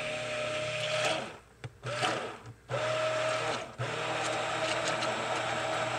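Electric stick blender whirring in a crockpot of soap oils mixed with cooked oatmeal and oat milk, run in about four bursts with brief stops between.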